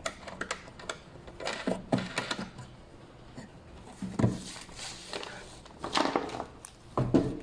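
Plastic knobs being handled: about five clusters of sharp clicks and knocks, a second or two apart.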